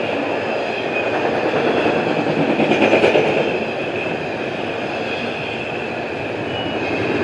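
Intermodal freight cars, double-stack container well cars and trailer flatcars, rolling past: a steady rumble and clatter of wheels on rail that swells a little about three seconds in.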